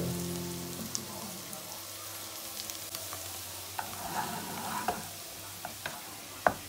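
Shredded vegetables and egg sizzling softly in a pot on the stove, with a few light clicks and scrapes of a spoon near the end.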